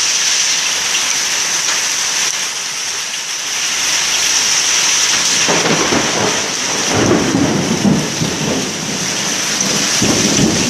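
Heavy rain mixed with hail pouring down in a steady, dense hiss. About halfway through, a low, uneven rumble starts and comes and goes over it.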